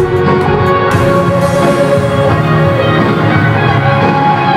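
Music playing, with held notes throughout.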